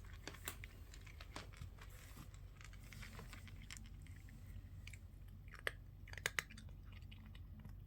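A cat faintly crunching and chewing a treat: scattered small clicks, with a few sharper ticks just before the end.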